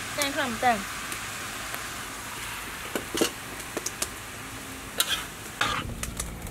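Stir-fried vegetables and pork sizzling in a wok, with a steady hiss. From about three seconds in, a metal spatula scrapes and clicks against the pan several times as the food is tossed. A brief voice sounds in the first second.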